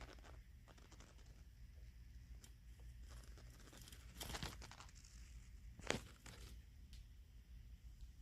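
Apartment breaker box giving a faint, steady electrical buzz with bursts of crackling: a longer crackle about four seconds in and a sharp snap about two seconds later. This is the sound of arcing inside the panel, an electrical fault.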